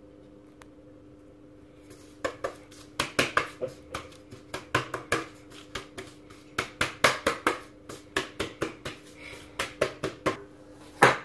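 Metal springform cake pan tapped and knocked again and again, irregularly at about two or three knocks a second, as it is shaken to spread flour over its sides, with one louder knock near the end. A steady low hum runs underneath.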